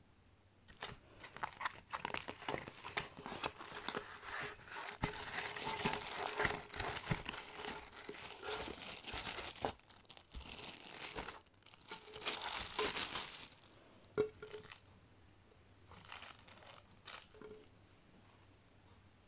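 Cardboard box and plastic wrapping rustling and crinkling in the hands as a flat, notebook-style water bottle is unpacked. The handling runs on from about a second in until about two-thirds through, then comes only in a few brief rustles and a click before going quiet.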